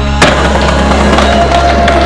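Music soundtrack, with one sharp hit about a quarter second in.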